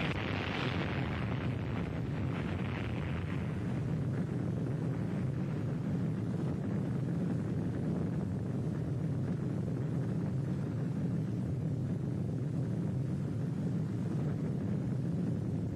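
Steady low rumble of an atomic bomb explosion, with a hiss on top that is strongest at first and fades over the first few seconds.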